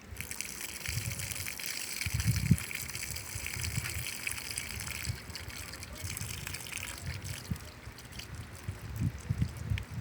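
Water pouring and splashing for about five seconds, then trailing off, with wind rumbling on the microphone.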